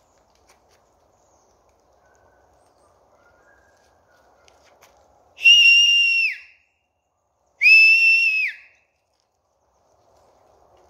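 A man whistling loudly twice to call dogs. Each whistle is a steady high note about a second long that dips in pitch as it ends, the two about two seconds apart.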